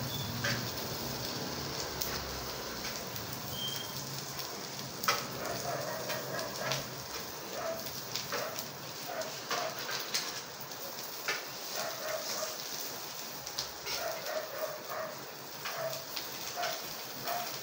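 A dog yipping and whimpering in short high calls, coming in small clusters from about six seconds in. Under it runs a steady hiss of food frying in a pan, with scattered clicks of a utensil against the pan.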